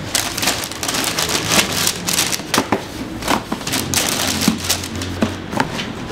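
Thin wrapping paper rustling and crinkling in quick, irregular bursts as a pair of sneakers is unwrapped and lifted out of its cardboard shoebox.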